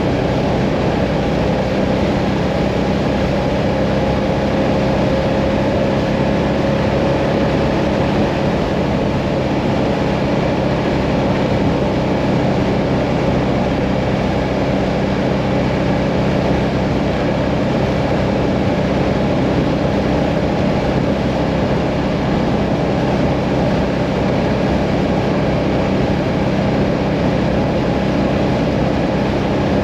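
Mirage 650 motorcycle engine running at a steady cruising speed on the open road, its pitch holding nearly constant, over an even rushing noise.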